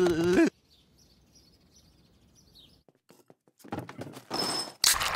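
Faint bird chirps over near quiet, after a held voice cuts off about half a second in. Near the end come a few clicks and short, loud bursts of noise.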